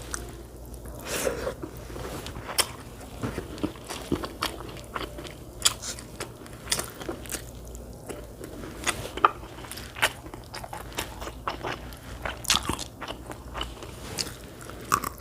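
A person chewing and biting food close to the microphone, with many irregular crunches and wet mouth clicks.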